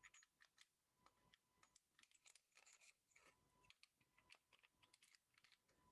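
Near silence with faint, scattered small clicks and taps of a Browning Hi-Power pistol's metal parts being handled as its slide is fitted back onto the frame.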